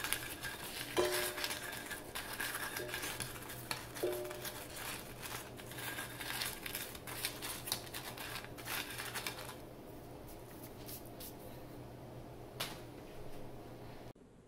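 Hands rolling fried breadsticks through cinnamon sugar on a ceramic plate: gritty scraping and light clicks of sugar and dough against the plate, busy for the first nine or ten seconds, then fainter and sparser.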